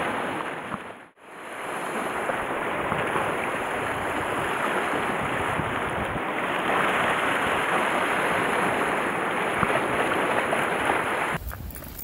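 Steady rushing of sea surf on a rocky shore, dropping out briefly about a second in and then coming back. Near the end it cuts to a quieter scene with a few faint ticks.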